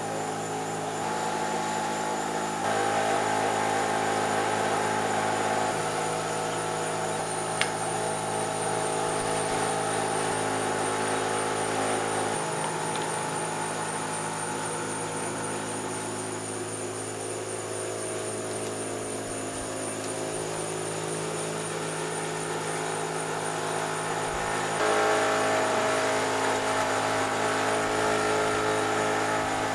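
A bus engine running at a steady speed, getting a little louder about three seconds in and again near the end. A single sharp click about eight seconds in.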